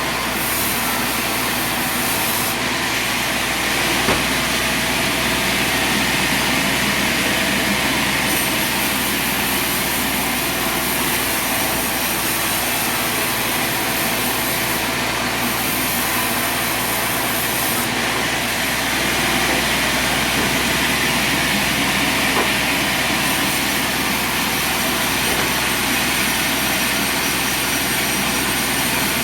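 Engine-driven sawmill running at a steady speed, its saw cutting wood.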